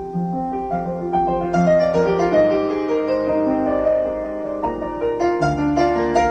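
Solo piano music played back through a pair of EAW KF300 loudspeakers as a listening test, with slow sustained chords and notes. The owner hears a harsh sound from the left speaker and suspects dust in its tweeter.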